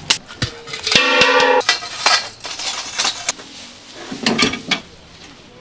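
Metal clanking and knocking as a canopy frame and sheet-metal charcoal grill boxes are handled and set down, with a brief pitched squeal about a second in.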